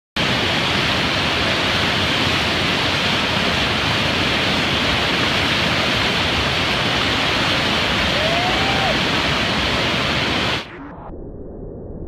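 Whitewater rapids: a loud, steady rush of churning water. About ten and a half seconds in it drops abruptly to a much quieter, muffled rush.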